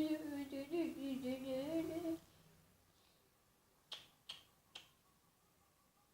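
A girl humming a wandering tune for about two seconds, then three short sharp clicks in quick succession.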